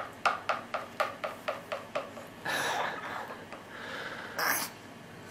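Small spoon rapidly tapping and scraping in a plastic feeding bowl, about nine quick ringing clicks over two seconds while scooping up baby food. Then two short breathy noises, a snort-like breath and a sniff.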